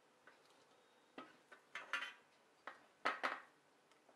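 Light clinks and rattles from the power supply's circuit board, wiring and sheet-metal case being handled during desoldering: a few short scattered knocks, loudest around two seconds in and again just after three seconds.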